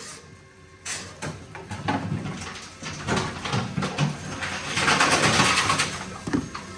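Tomra T-53 reverse vending machine taking in plastic bottles: knocks and clatter as the bottles go in, then the machine's mechanism running as it processes them, growing louder toward the end.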